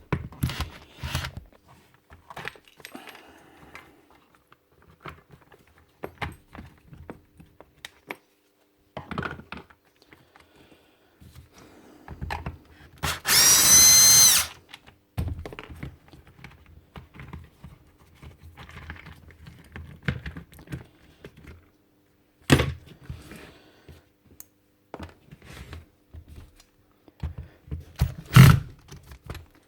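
Tool parts clicking and knocking during the strip-down of a DeWalt DCH333 rotary hammer, with a small power tool whirring for about a second and a half around halfway through. There are two sharper knocks near the end.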